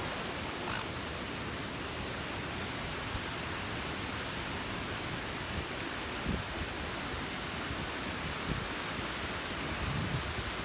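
Waterfall: a steady rush of fast-flowing water, with a few faint low knocks.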